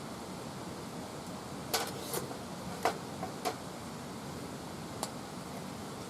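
Wood fire crackling: a steady hiss with a handful of sharp pops and snaps scattered through the middle.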